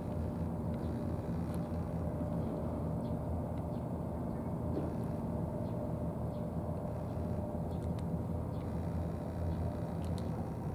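Steady low engine drone running without change, with faint scattered clicks of cats chewing dry food.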